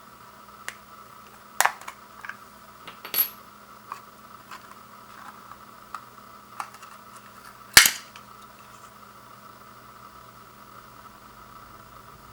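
Irregular sharp clicks and knocks of hard plastic parts and packaging being handled and set down, about nine in all, with the loudest knock about eight seconds in.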